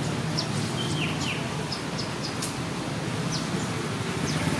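Small birds chirping in scattered short, high, falling notes, every half second to a second, over a steady low outdoor hum.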